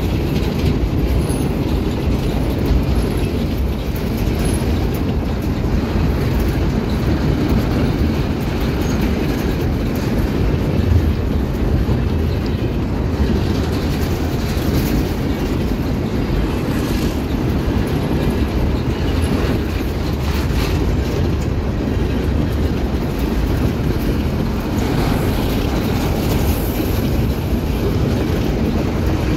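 Empty steel grain hopper cars of a freight train rolling past close by: a steady low rumble of wheels on rail, with faint clicks as the wheels cross rail joints.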